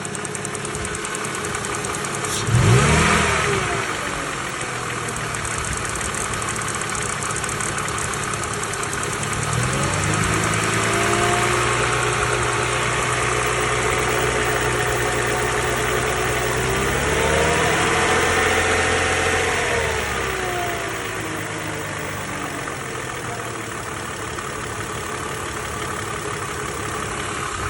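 Mercedes-Benz M104 straight-six engine, hot, running with a knock that shows up once it is warm. It idles, is blipped briefly about 3 s in, held at raised revs from about 10 s, raised further around 17 to 20 s, and then drops back to idle.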